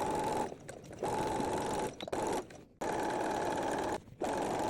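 Domestic sewing machine stitching fabric in runs of about one to one and a half seconds, stopping briefly between them three times.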